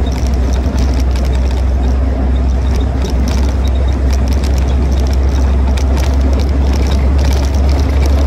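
Open-top replica WW2 jeep driving along, its engine running steadily under a heavy, constant wind rumble on the windscreen-mounted microphone. Scattered rattles and clicks come from the loose-bodied vehicle.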